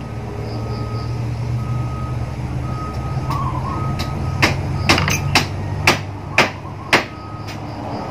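A vehicle's reversing beeper sounding a series of evenly spaced beeps over a steady low engine rumble. About halfway through, a run of six or so sharp knocks.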